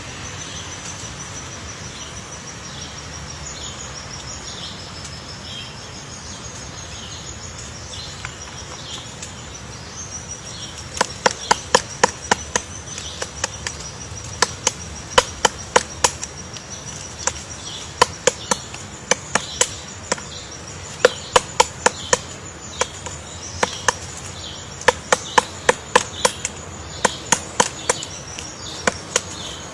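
Woodpecker pecking at wood: sharp, irregular knocks, often several a second, starting about a third of the way in. Under it runs a steady high insect buzz with short repeated chirps.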